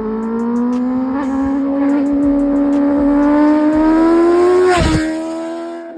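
Sport motorcycle engine accelerating, its pitch climbing steadily, then dropping sharply about five seconds in as it shifts up. Music with a steady beat plays underneath.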